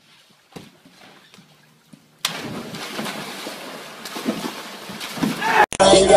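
Water splashing and churning in a backyard swimming pool as a person jumps in, a noisy rush that starts suddenly about two seconds in, with a few knocks. Near the end it cuts to hip-hop music with rapping.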